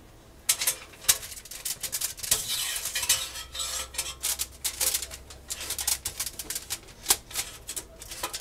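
Aluminium foil crinkling and tearing as hands press and poke it through the holes in a rotisserie oven's foil lining, a dense run of crackles and ticks. A single sharp click near the end is the loudest sound.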